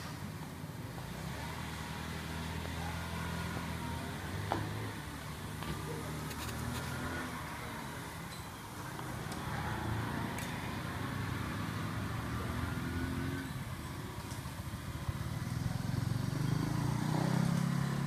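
Street traffic: motor vehicle engines running and passing, a low hum that swells and fades, loudest near the end, with scattered small clicks and knocks.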